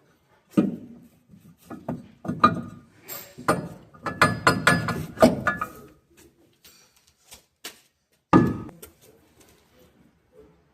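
Metal parts and hand tools clanking and knocking while being handled during a machinery repair, with a busy run of knocks in the middle and one heavier thump near the end.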